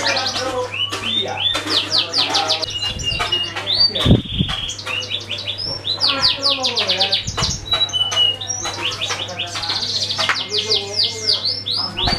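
Domestic canary singing: fast trills of rapidly repeated notes sweeping downward, mixed with short steady whistled notes. A low thump about four seconds in.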